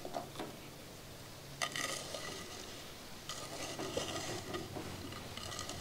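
A hand stirring granulated sugar through whole cherries in a glazed ceramic rumtopf, a rustling crunch of sugar and fruit. It comes in two stretches, starting about a second and a half in.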